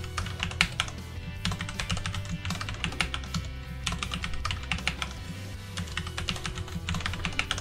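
Fast typing on a computer keyboard, the keys clicking in several quick bursts with short pauses between them, over quiet background music.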